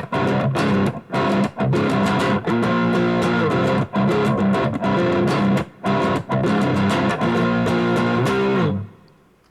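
Overdriven electric guitar playing a crunch riff: a StewMac S-type with Wilkinson Alnico V pickups, neck and bridge pickups in parallel, through a Boss SD-1 into a Boss GT-1 high-gain patch and a small amp. Chords broken by short stops with a few bent notes, the phrase played twice, then the guitar stops and rings out about nine seconds in.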